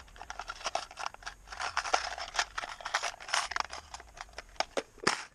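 Irregular clicks and scrapes of hands handling the metal parts of a partly disassembled SKS rifle.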